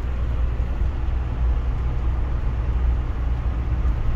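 Steady low rumble of a camper van driving on a motorway, heard from inside the cab: engine and tyre noise with no distinct events.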